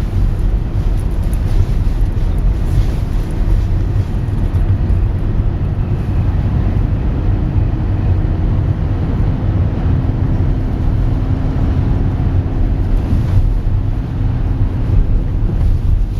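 Diesel station wagon driving through snow and slush, a steady low rumble of engine and tyres with faint engine hum above it.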